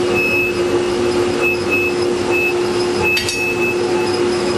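Steady drone of running shop machinery with a constant hum, and one sharp click about three seconds in.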